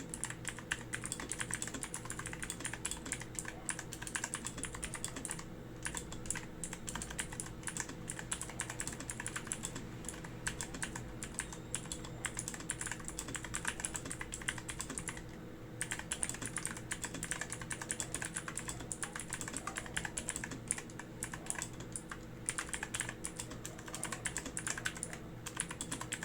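Typing on a Zifriend ZA94 mechanical keyboard with Otemu Blue clicky switches: a fast, continuous clatter of clicky keystrokes. It breaks off briefly about five and fifteen seconds in. The keyboard is noisy when typing, as blue switches are.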